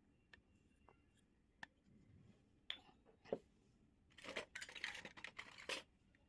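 Small plastic toy pieces clicking and tapping lightly a few times, then a second and a half of crinkling, tearing rustle of packaging about four seconds in.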